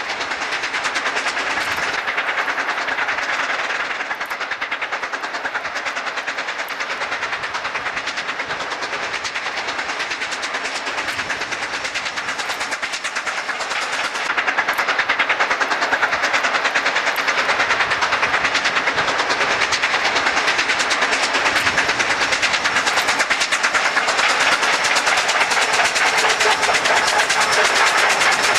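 Steam locomotive exhaust beating in rapid, even chuffs as the engine works hard up a steep grade, stepping up in loudness about halfway through.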